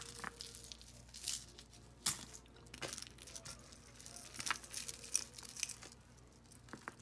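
Beaded costume jewelry clicking and rattling as pieces are handled, with irregular small clicks and some rustling.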